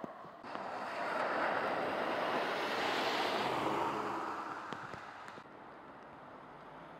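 A vehicle passing on a rain-soaked road, its tyres hissing through the standing water. The hiss swells for a few seconds, then fades away.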